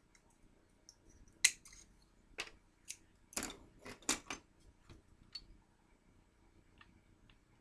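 Plastic Halloween chain links clicking and knocking as they are handled: a scatter of sharp clicks, the loudest about one and a half seconds in and most of them bunched between two and four and a half seconds, fewer after.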